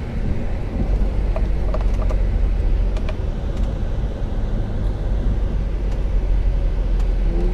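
A motor vehicle on the move: a steady low road rumble with a few faint ticks.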